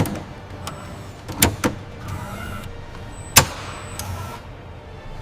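Four sharp knocks over a low steady hum: one at the start, two close together about a second and a half in, and the loudest about three and a half seconds in.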